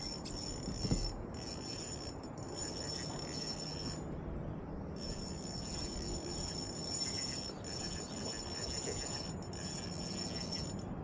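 Insects trilling in a steady, high-pitched buzz that stops for short pauses several times, over a low background rustle, with a dull knock about a second in.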